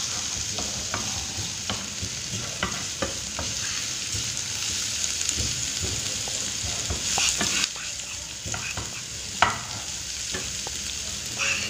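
Sliced shallots and garlic sizzling in hot oil in a frying pan while a wooden spatula stirs and scrapes them, knocking against the pan now and then, with one sharper knock about nine seconds in.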